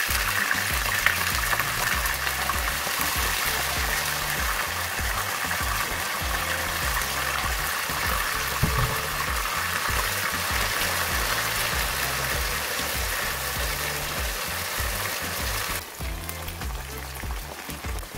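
Strips of pork deep-frying in hot oil in a wok: a steady, dense sizzle, which turns quieter near the end. Background music with a repeating bass line plays underneath.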